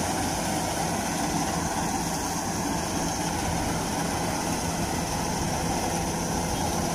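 Kubota DC-93 rice combine harvester running steadily while cutting standing rice, its diesel engine and harvesting machinery giving an even, unbroken drone.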